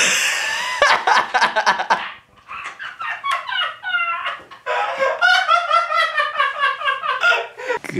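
A man laughing hard and high-pitched in long rapid fits, breaking off briefly about two seconds in and again past the middle.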